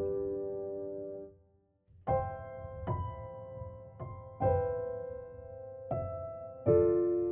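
Slow, soft background piano music: single chords struck every second or so, each ringing out and fading. About a second and a half in, the sound drops out completely for under a second, then the piano resumes.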